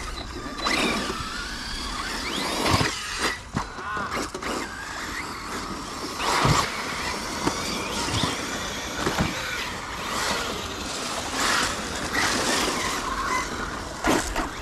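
Electric RC cars running: motors whine up and down in pitch over a steady hiss, with several sharp knocks.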